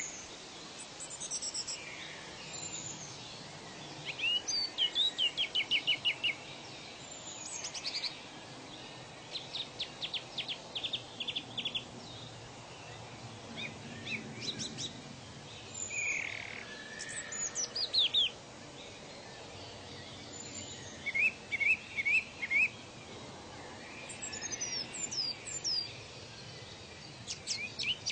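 Several birds calling: scattered runs of quick repeated chirps and a few short falling whistled notes, over a steady background hiss.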